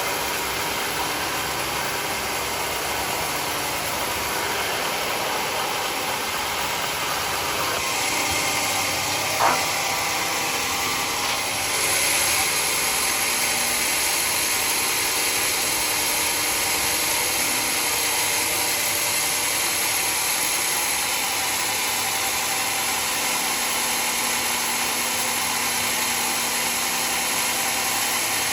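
Sawmill machinery running steadily, with a single sharp knock about nine and a half seconds in. The sound grows brighter and a little louder about twelve seconds in.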